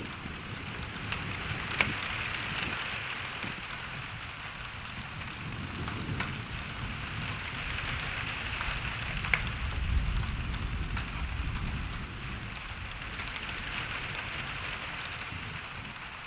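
Steady rainfall hissing, with a few single drops striking close by as sharp ticks. A low rumble of distant thunder swells and fades around the middle.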